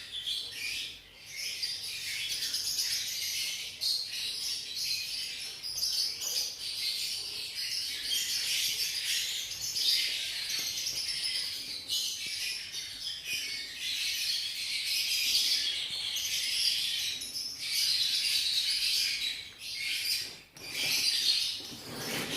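Birds chirping and twittering: a dense, continuous shrill chatter that dips briefly twice.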